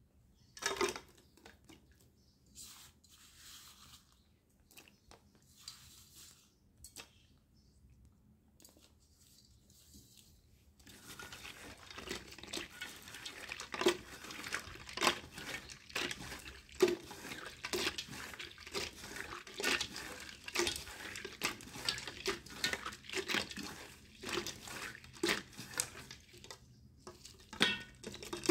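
Broken slate pencil pieces clicking and scraping on a steel plate as they are handled. About eleven seconds in, hands start swishing and rubbing the pieces in a steel bowl of water, with splashing and the pieces knocking together.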